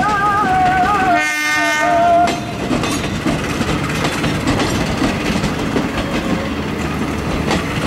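Argo express passenger coaches passing close by, a steady rumble with wheels clattering over rail joints. About a second in, a horn sounds one steady blast lasting about a second. A wavering pitched sound is heard at the very start.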